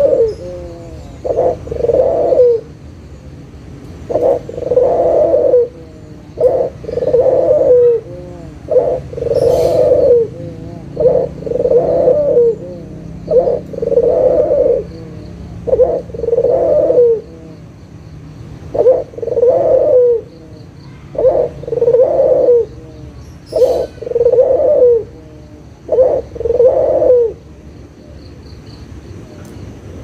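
White ringneck dove (puter) cooing over and over: each call is a short note followed by a longer rolling coo, about every two and a half seconds, roughly ten calls, stopping shortly before the end.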